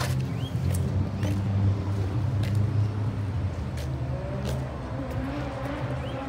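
A car engine idling with a steady low rumble, with a few sharp clicks on top.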